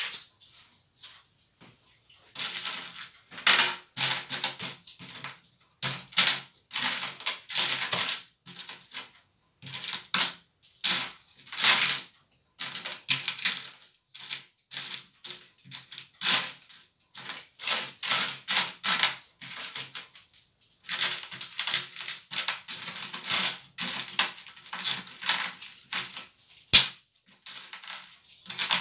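Loose coins clinking and jingling as a hand rakes through a heap of them in a plastic bowl and picks coins out. The clicking comes in quick bursts a second or two long, with short pauses between.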